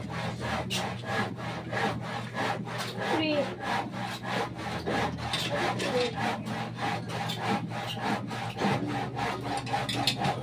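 Rasping strokes of a hand tool worked back and forth against a concrete block wall, in a steady rhythm of about three to four strokes a second, over a steady low hum.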